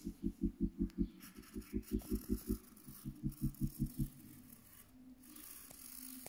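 Pencil on paper over a clipboard, ticking out quick short dashes about six a second with two short breaks, then stopping about four seconds in.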